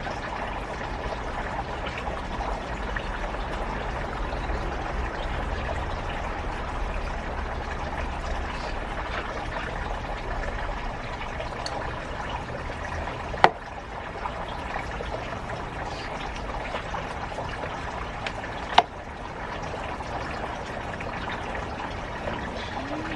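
Steady trickling, water-like noise, with two sharp clicks, the first about halfway through and the second about five seconds later.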